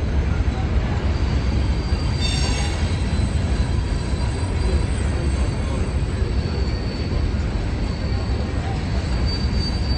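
Train rolling by with a steady rumble of wheels on rail. A brief high wheel squeal comes about two seconds in, and a thin squeal rises again near the end.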